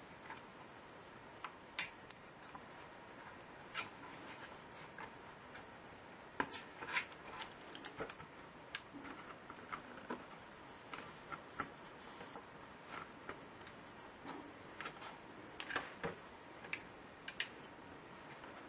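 Irregular small clicks and taps from hands handling laptop parts during disassembly, with a few sharper knocks about six to seven seconds in and again near sixteen seconds, over a faint hiss.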